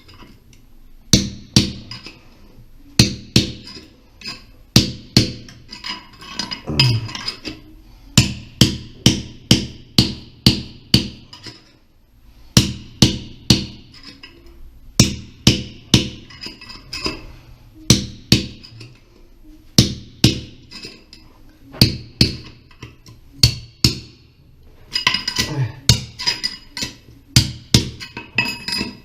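Hand hammer striking metal in short runs of several sharp, ringing blows, about two to three a second, with brief pauses between runs; typical of working a new cast iron closet flange in with lead and oakum.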